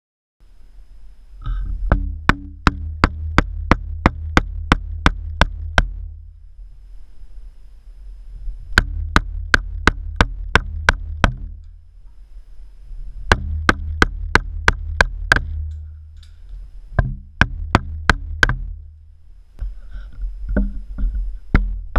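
Mallet striking a chisel, chopping into wood: runs of sharp blows about two to three a second, with short pauses between the runs. A low rumble sits under each run.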